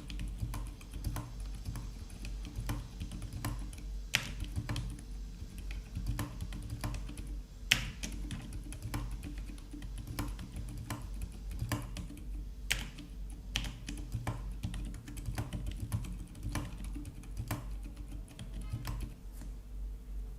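Typing on a Velocifire TKL02WS tenkeyless mechanical keyboard with Outemu Silent White switches lubed with Krytox 205 Grade 0: a steady run of soft, muted keystrokes, with a few sharper, louder clacks mixed in.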